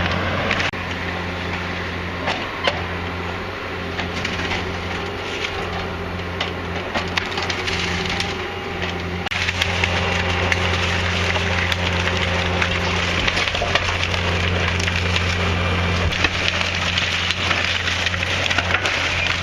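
The wooden frame of an old house being torn down: timber cracking and splintering continuously, with many sharp snaps, over a steady engine drone.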